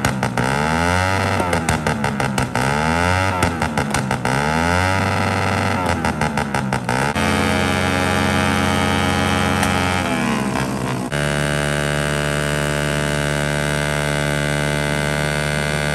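Small four-stroke motorcycle engines revved hard. For the first seven seconds a Suzuki Raider 150 is blipped up and down about once a second, with rapid crackling backfire pops from the exhaust. After that an engine is held at steady high revs, as in a burnout.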